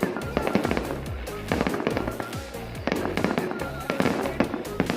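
Aerial fireworks going off in a dense, irregular run of sharp bangs and crackles, with music playing underneath.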